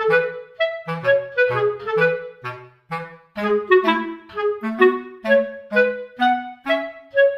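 Light instrumental background music: a bouncy tune of short, separate notes over a stepping bass line.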